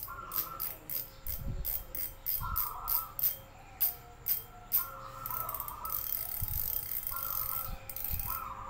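Shimano Stradic spinning reel's drag clicker ticking as the spool is turned by hand against the drag: separate clicks about three a second, loudest around four seconds in, then a faster continuous rasp from about five seconds on.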